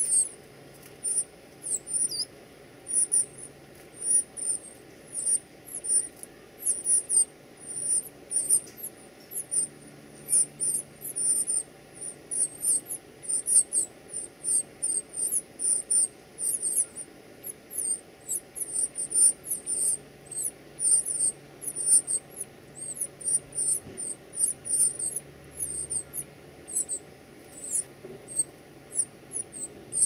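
Northern cardinal nestlings begging for food: a rapid, continuous stream of short, very high, thin calls, several a second, rising and falling in bouts.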